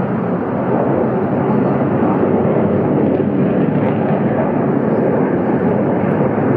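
Fighter jets flying overhead: a loud, steady jet engine roar.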